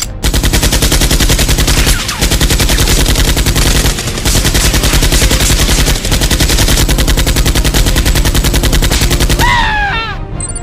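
Rapid automatic machine-gun fire, a dubbed-in sound effect rather than the foam blaster's own sound, in bursts of about two seconds with short breaks between them. It stops near the end, where a few short falling whines are heard.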